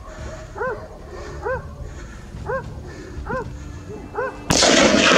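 Hunting dog barking over and over, about once a second, then a single gunshot about four and a half seconds in, with a long echo.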